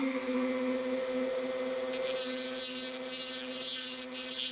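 Small electric rotary tool running steadily with a cone-shaped burr bit, chamfering the worn, oval grease-zerk holes in an ATV's steel wheel knuckle. About two seconds in a higher grinding hiss joins the motor's tone as the burr cuts into the metal.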